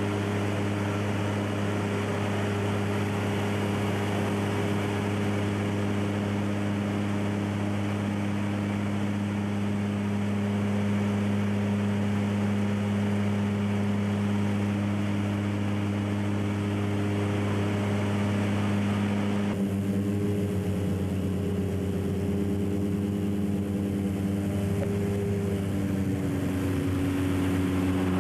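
Propeller aircraft engines droning steadily, heard from inside the cockpit, with a constant low hum and a few steady overtones. The sound shifts about two-thirds of the way through, and near the end the engine note drops in pitch.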